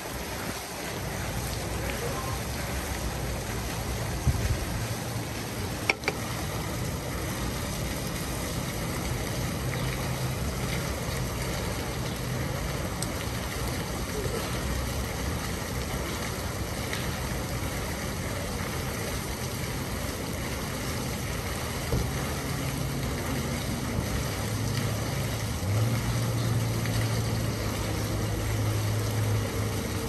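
Fountain water falling and splashing steadily into its basin, with a low hum underneath that grows louder near the end.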